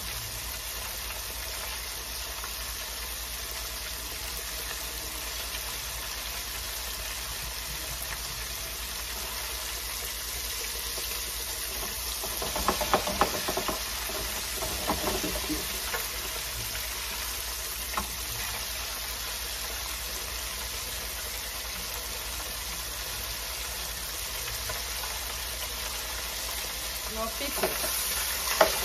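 Flour-coated croaker fish deep-frying in an electric deep fryer, the oil sizzling steadily. Around the middle there is a spell of louder sizzling and clatter as more pieces go into the basket, and near the end metal tongs click against the fry basket as the fish is turned.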